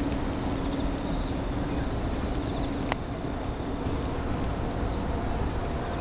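Night chorus of singing insects: a steady high trill with bursts of higher pulsed chirping over it, against a low, steady city traffic rumble. A low hum drops away about halfway through, and there is one short click.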